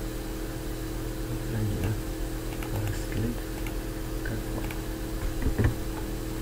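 Computer mouse clicking several times, scattered and irregular, over a steady electrical hum.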